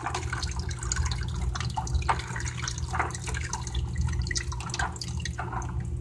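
Hot water pouring and splashing out of an electric water heater's element port, down a cut-open 2-liter soda bottle chute into a plastic bucket. It keeps running because a hot-water sink tap is still open, so the tank is not a closed system.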